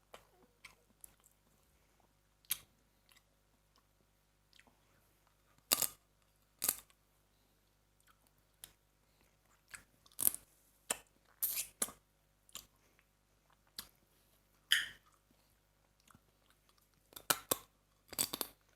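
Someone eating blue swimming crab salad: scattered sharp crunches and crackles of bites and chewing, some coming in quick clusters, with quiet pauses between.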